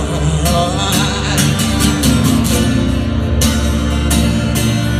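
Live acoustic band: acoustic guitar strummed in a steady rhythm over a plucked upright double bass, playing between sung lines of the song.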